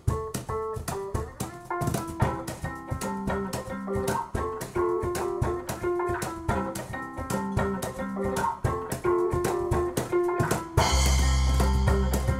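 Instrumental music: electric bass guitar picking a melodic line of short notes, with sharp cajón hits keeping time. About eleven seconds in, a loud, deep held bass note comes in together with a high, hissing wash.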